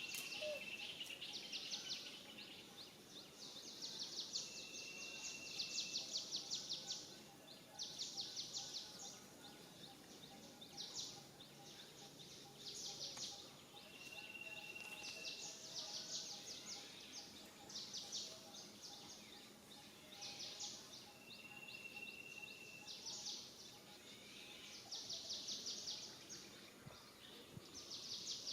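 Outdoor wildlife ambience: high chirring calls in repeated bursts of one to two seconds, with a short, steady, high whistle note about every eight seconds.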